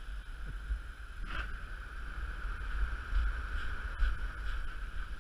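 Wind buffeting the microphone: an uneven low rumble that rises and falls in gusts, with a faint steady hiss above it.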